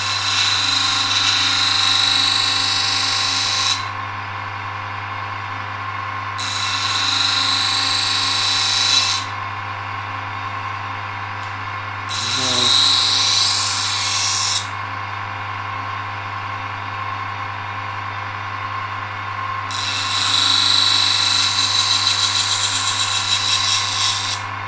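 Electric grinder running steadily, with a knife blade pressed to it four times, each pass a few seconds of hissing grinding as the edge is reground.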